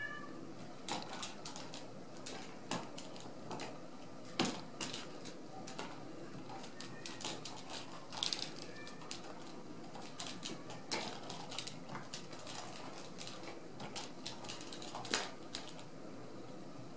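Ragdoll kittens scampering and pouncing on a rug after a wand toy: irregular light taps and clicks of paws, claws and toy, with sharper taps about four seconds in and again near the end.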